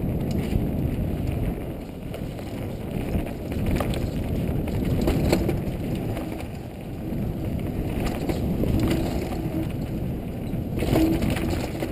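Mountain bike rolling fast down a dirt singletrack: the tyres on dirt and wind on the helmet-mounted microphone make a steady rumble, with scattered clicks and rattles from the bike over bumps.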